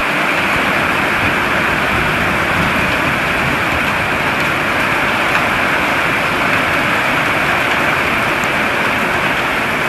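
Heavy thunderstorm rain pouring steadily onto a corrugated patio roof, with storm wind.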